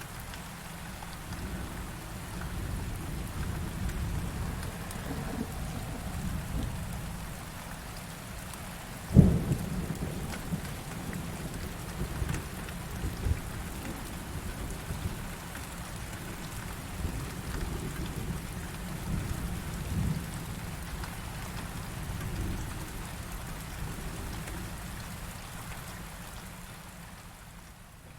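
Heavy rain falling steadily with low rolling thunder. A sharp thunderclap cracks about nine seconds in, and the rumbling dies down near the end.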